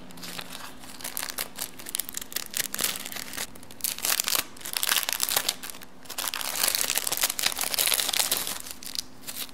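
Clear plastic resealable bags crinkling and rustling as they are handled and opened, in irregular bursts that grow densest a little past the middle.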